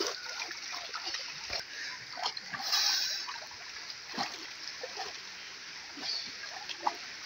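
Shallow river water splashing as people wade and work their hands in it, over a steady rush of flowing water, with a louder splash about three seconds in.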